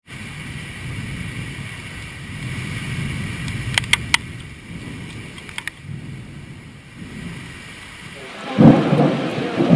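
Thunder rumbling low and rolling, with a few sharp clicks around four and five and a half seconds in, then a loud, sudden thunderclap about eight and a half seconds in. Rain falls throughout.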